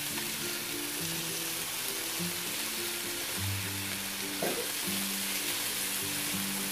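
Raw chicken breasts sizzling steadily on a hot electric griddle with a thin coat of olive oil, as more pieces are laid down. Background music plays underneath.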